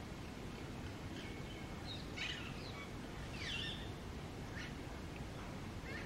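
Rose-ringed parakeets calling: a cluster of short, harsh squawks and chirps about two to four seconds in, then a couple of single short calls, over a steady low outdoor background noise.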